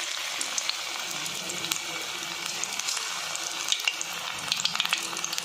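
Besan-battered drumstick (moringa pod) pieces deep-frying in hot oil in a kadai: a steady sizzle with scattered crackling pops.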